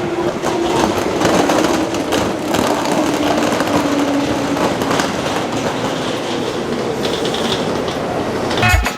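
Train running on rails, with wheels clicking over the track and a low hum that slowly drops in pitch.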